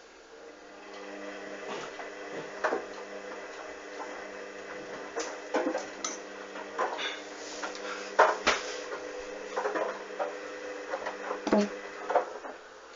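Hoover washing machine's drum motor slowly tumbling the wet load in its anti-crease phase, after the final spin failed because the load was too unbalanced. A steady motor hum starts about a second in, with scattered knocks and clunks from the drum and clothes.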